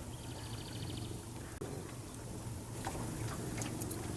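Water splashing and lapping over a steady low hum, with a few sharp splashes about three seconds in. A short rapid high bird trill comes about half a second in.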